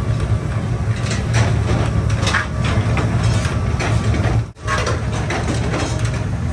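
Flywheel-driven mechanical power press running with a steady low hum, with irregular metallic strikes as its ram presses red-hot steel cultivator blades. The sound drops out for an instant about halfway through.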